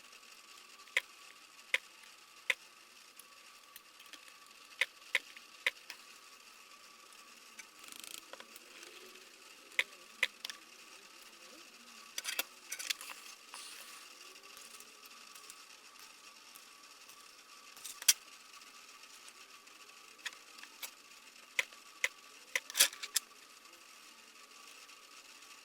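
Battery spot welder firing as nickel strips are welded onto the vacuum pack's cells: a series of sharp, short cracks at irregular intervals, several in quick pairs, over a faint steady high hum.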